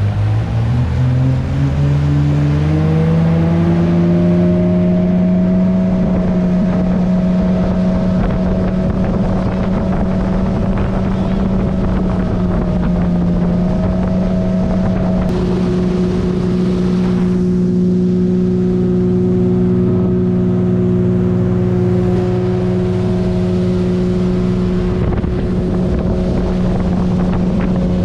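Motorboat engine speeding up, its pitch rising over the first few seconds, then running steady at speed while towing a tube, over the rush of the churning wake.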